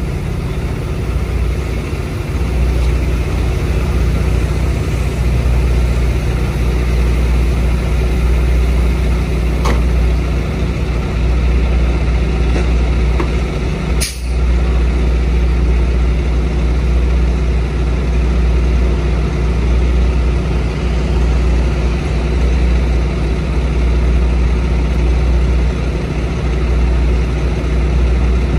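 Heavy diesel engine running steadily at a constant speed, with a single sharp click about halfway through.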